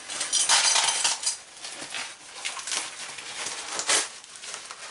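Crumpled packing paper rustling and crackling as a small part wrapped in it is pulled out of a cardboard box and unwrapped by hand, loudest during the first second and again briefly near the end.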